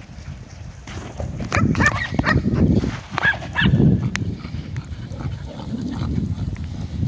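A pack of dogs barking, with a quick run of barks from about one to four seconds in, over a steady low rumble.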